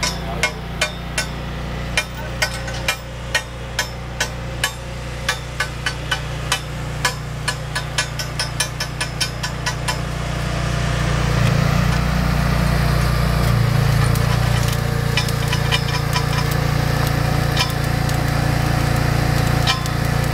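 An engine running steadily, getting louder about halfway through, with sharp regular clicks at about two or three a second over the first half and a few scattered clicks later.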